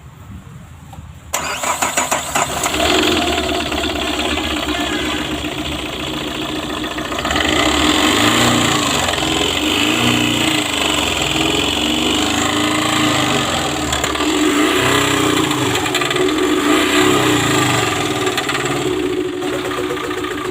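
Tata Super Ace Mint's DICOR diesel engine starting about a second in, then running steadily, a little louder from around seven seconds in. This is the engine that is being shown for a knock and misfire.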